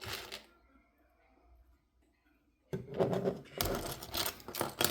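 Small plastic Lego pieces clicking and clattering as they are handled: one click at the start, then, after a quiet stretch, a dense run of clatter from about three seconds in.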